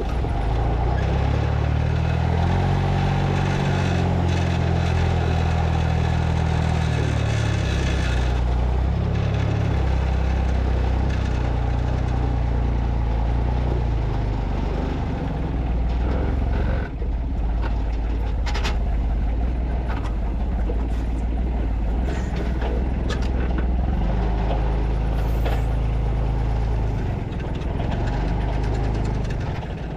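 A vehicle engine running under load, its pitch stepping up and down over the first several seconds, then holding steadier, with a brief dip about seventeen seconds in.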